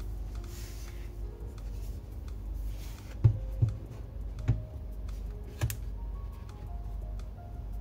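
Soft background music, broken by four sharp clicks a little past the middle as the laptop with its freshly fitted RAM stick is handled before being switched on.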